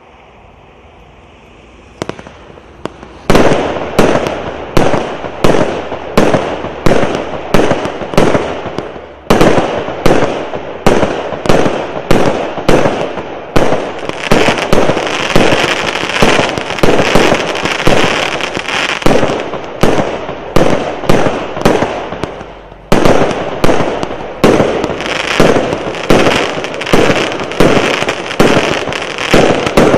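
A 64-shot 0.8-inch fireworks cake firing. About two seconds in it goes off with a single shot, then fires in a rapid, regular volley of sharp bangs, roughly two a second. There is a brief pause a little past the middle before the volley resumes.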